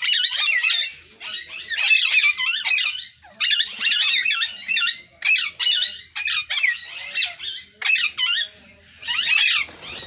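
A flock of Alexandrine parakeets calling: many short, high-pitched calls overlapping in quick bursts, with brief pauses between bursts and a short lull near the end.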